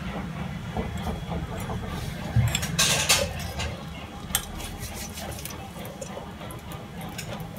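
Oil poured from a steel tumbler into the aluminium pot of an electric cooker: a short noisy splash about three seconds in, with scattered clinks of the tumbler against the pot, over a steady low hum.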